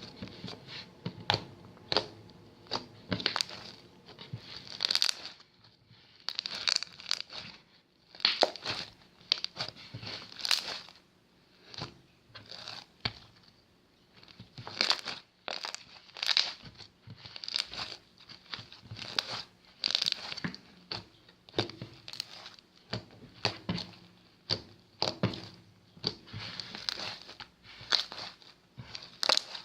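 Fluffy, crunchy slime with beads mixed in being squeezed and stretched by hand: irregular crackling and popping squishes, about one a second, with short pauses between.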